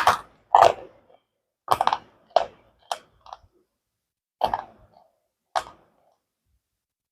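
Slate pencils being bitten and crunched between the teeth: about eight sharp, crisp crunches at irregular intervals, stopping about six seconds in.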